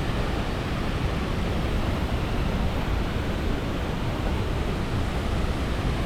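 Turbulent river water rushing, a steady even noise without pause.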